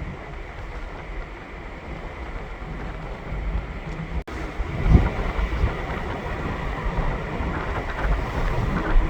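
Wind buffeting the microphone with a steady low rumble, and a single low thump about five seconds in.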